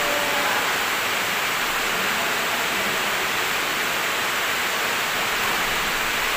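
A steady, even rushing noise with no distinct hits standing out.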